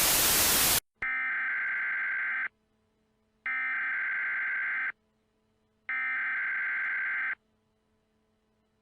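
A burst of loud static that cuts off under a second in, then three bursts of Emergency Alert System SAME header data tones, each about a second and a half long with short silences between: the digital header that opens an EAS alert.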